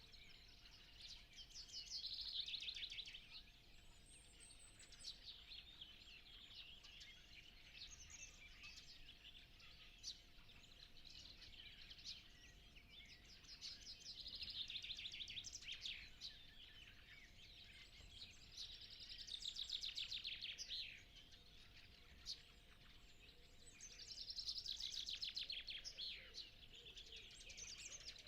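Faint dawn chorus of songbirds. One bird repeats a trilled song phrase of about two seconds roughly every five or six seconds, with scattered calls from other birds between. A faint steady hum runs underneath.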